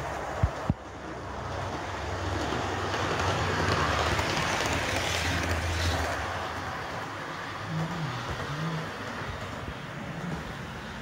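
Model electric commuter train (Ibertren RENFE Cercanías unit) running along its track, a steady hum and whirr that swells to its loudest in the middle and then eases off. A couple of short clicks in the first second.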